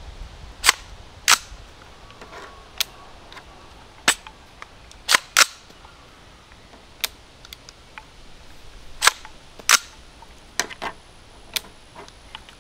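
Frozen AR-15 dry-clicking: the hammer snaps forward and the action is worked by hand over and over, making about a dozen sharp metallic clicks, some single and some in quick pairs, with no shot fired. The hammer falls but the round does not go off, which the shooter takes for a frozen firing pin.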